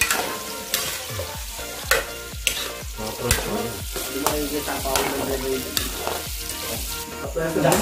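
Metal spatula scraping and clanking against a wok, about once a second, while diced potatoes and carrots sizzle in hot oil.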